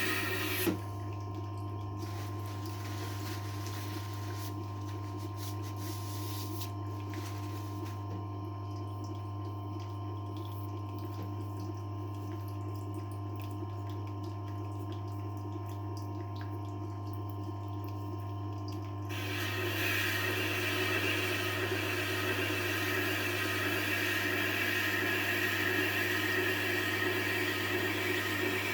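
Tormek T-8 wet sharpening machine running with a steady low hum. The hiss of steel grinding against its wet stone stops with a click under a second in and starts again about two-thirds of the way through.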